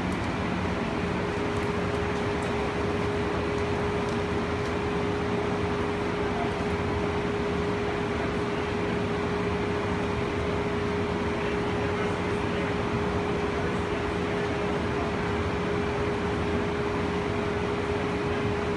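Cabin noise of the cable-hauled BART Oakland Airport Connector people mover while running: an even rumble and hiss with a steady hum on one pitch.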